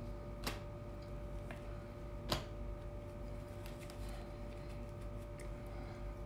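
Tarot cards being handled: two sharp clicks about half a second and two seconds in, the second louder, with a few faint ticks in between, over a steady low hum.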